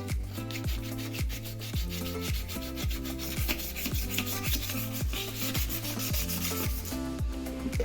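Background music with a steady kick-drum beat about twice a second over bass and chord notes.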